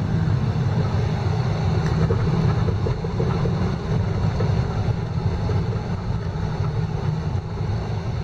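A four-wheel drive vehicle being driven: a steady low rumble of engine and tyre noise.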